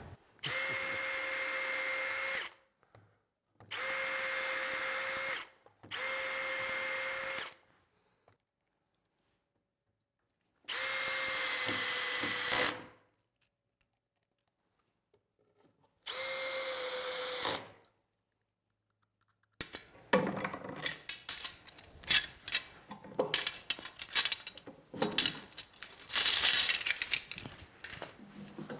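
Cordless drill running in five separate bursts of about two seconds each at a steady whine, pre-drilling pilot holes and driving 1¾-inch screws into the edge of plywood; the last two bursts sag in pitch as they end. About twenty seconds in comes a busy run of irregular clicks and knocks.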